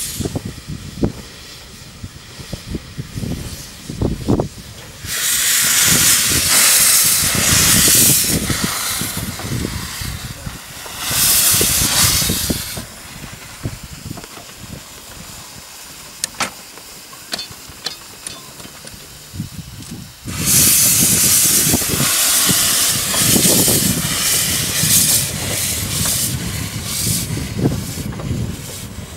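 Narrow-gauge steam locomotive venting steam in loud hissing spells: one of about three seconds, a shorter one, then a long one near the end, when the engine moves off with steam blowing from its open cylinder drain cocks over a low rumble.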